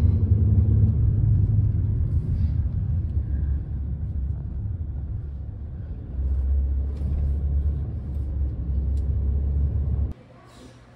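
Steady low rumble of a moving car, heard from inside the cabin. It cuts off suddenly near the end.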